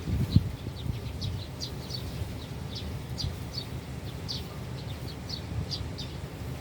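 Small birds chirping: short, high chirps several times a second, over a low rumble of wind or distant traffic, with one dull thump just after the start.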